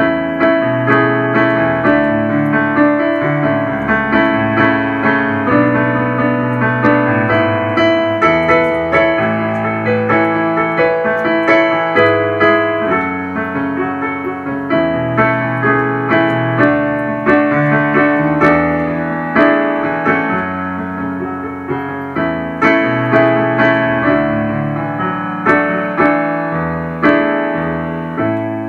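Instrumental piano playing a hymn tune in an even, steady pulse of chords, dying away on a final chord at the end.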